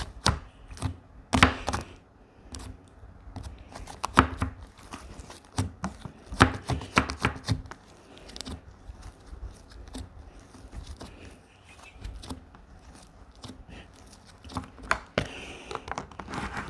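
Slime being squeezed and poked by hand, giving irregular sticky clicks and pops in clusters, with quieter stretches between.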